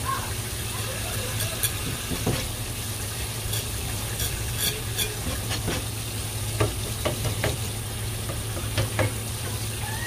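Tap water running steadily onto a plastic cutting board while a knife scrapes and taps on the board as a cutlassfish is cleaned. There are several sharp knife taps in the second half, over a steady low hum.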